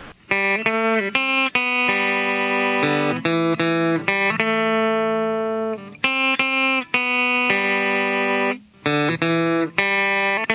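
2018 Epiphone Les Paul SL electric guitar played clean on its bridge pickup as a single-note line. Several quick picked notes give way to longer held notes that ring out, with a brief break about three-quarters of the way through.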